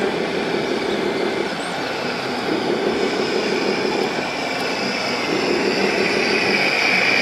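Radio-controlled scale model trucks and a tracked loader running: a steady mechanical hum, with a high whine that grows louder over the last couple of seconds.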